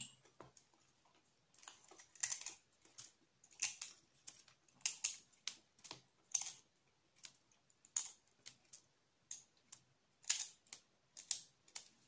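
Fingers picking small pieces of shell off the opened top of a raw hen's egg: irregular crisp clicks and crackles of breaking eggshell.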